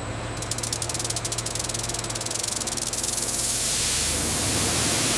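Processing machinery running, with a steady low hum and a fast, even rattle over the first few seconds. A hiss like spraying or draining water grows louder through the second half.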